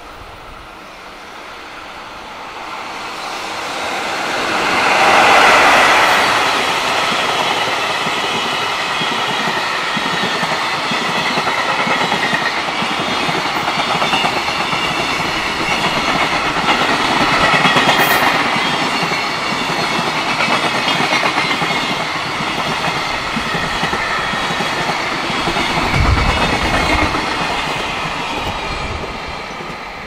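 A long JR Freight container train passing close by: the electric locomotive's approach swells to a peak about five seconds in, then the container wagons' wheels run on the rails as a steady rush. It fades near the end, with a few low thumps.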